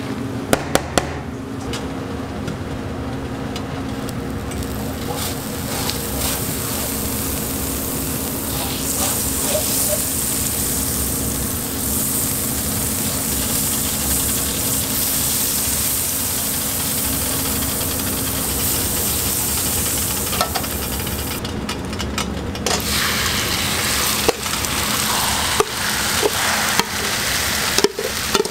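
A metal spoon clicks against a steel mixing bowl as shredded cabbage, carrot and ham are stirred with egg. Then butter sizzles on a hot flat-top griddle, a steady hiss from about five seconds in. Near the end the sizzling goes on under a few sharp clicks of the spoon on the bowl as the mixture is tipped onto the griddle.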